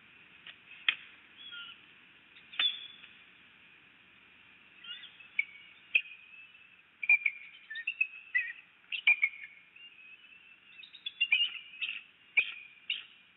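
Bird calling: a string of short, high chirps and squeals, some with quick rising or falling pitch glides, a few at first and coming more often from about five seconds in.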